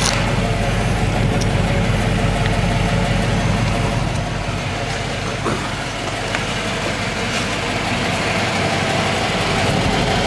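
1995 Cadillac Fleetwood's 5.7-litre LT1 V8 idling steadily shortly after a cold start, exhaling through new mufflers. It runs quiet, with a slight lisp.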